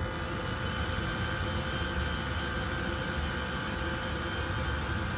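Creality Falcon 2 diode laser cutter with a 40 W laser head running a cut through 10 mm bamboo: a steady whir and hiss from its fans and air assist, with a faint high whine.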